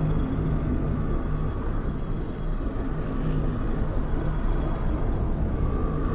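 Deep, steady rumbling drone from a film soundtrack, with low hum tones swelling and fading.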